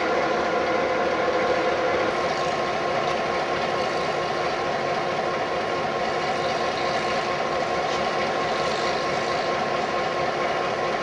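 Diesel-electric locomotive T395, a Victorian T class with an EMD two-stroke diesel, idling steadily while standing still.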